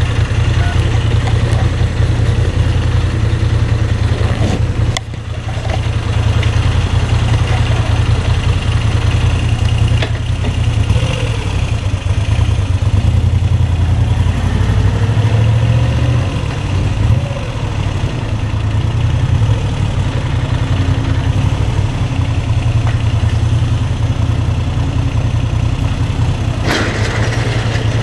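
Moto Guzzi V7 III's air-cooled 90° V-twin engine idling steadily in neutral, warm, with brief changes in its note about 5 seconds in and again around the middle.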